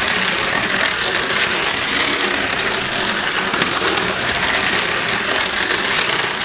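Battery-powered Magic Tracks light-up toy car running steadily around its flexible plastic track, its small electric motor and plastic gears whirring without a break.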